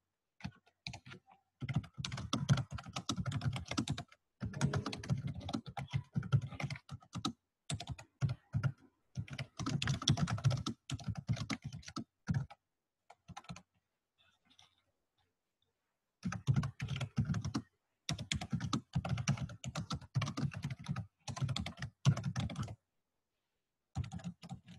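Typing on a laptop keyboard: quick runs of keystrokes in bursts of a few seconds, with a pause of about two seconds a little past the middle and a shorter one near the end.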